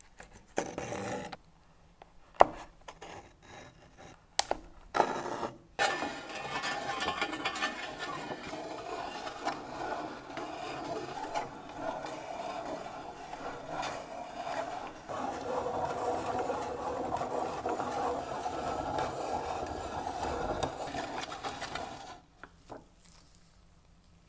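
Restored 1950 Alexanderwerk hand-cranked rotary cheese grater shredding a block of hard aged Comté: a steady rasping scrape from about six seconds in, stopping suddenly near the end. Before it come a few sharp knocks and clicks.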